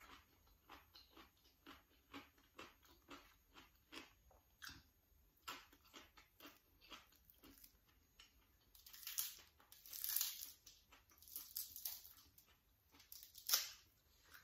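Close-up eating sounds: soft, regular wet chewing clicks, two or three a second. From about nine seconds in come several louder crackling bursts as grilled catfish is pulled apart by hand, the sharpest near the end.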